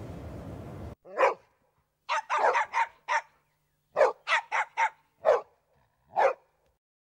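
A steady background hum cuts off abruptly about a second in, then a dog barks about a dozen short barks in irregular clusters, with dead silence between them.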